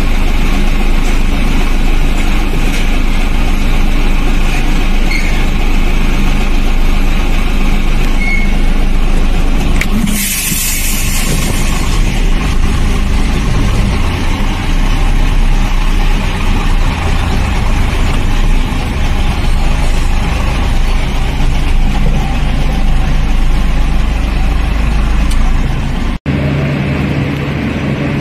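Heavy diesel engines of a container truck and port handling machinery running steadily, with a sharp hiss of released air, like an air brake, about ten seconds in. The sound drops out for an instant near the end, then a steadier low engine hum continues.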